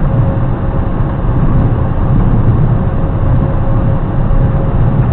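Steady engine and road rumble of a moving vehicle heard from inside its cab, with a thin steady whine over it.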